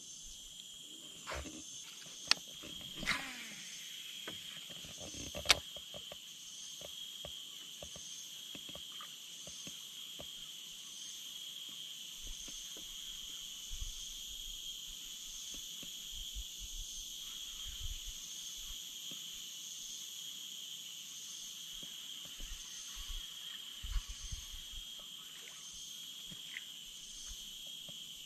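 Steady chorus of insects shrilling at several high pitches, evenly pulsing. A few sharp clicks come in the first six seconds, with scattered soft knocks later.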